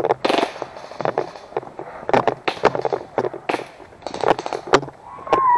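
A loosely secured GoPro rattling and knocking in its mount: irregular sharp clicks and knocks, several a second, with a brief gliding tone near the end.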